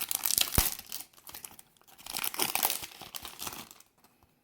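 Crinkling and rustling of a Pokémon card booster pack's foil wrapper and cards being handled, in two spells of a second or so each, with one sharp click near the start.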